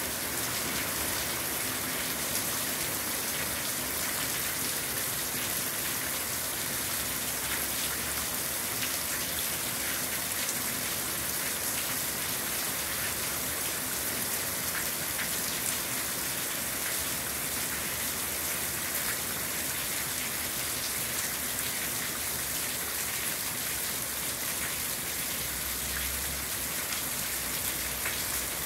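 Steady heavy rain falling on a corrugated panel roof over a chicken aviary, with many small drop impacts and water pouring and dripping off the roof edge onto plastic sheeting below.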